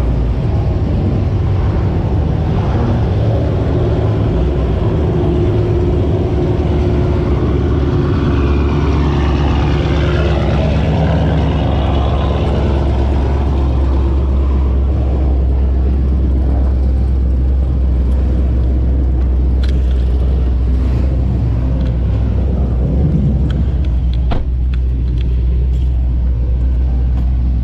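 Car engines running close by, a loud, steady low rumble with some rising and falling pitch sweeps about a third of the way in and a few sharp clicks in the last third.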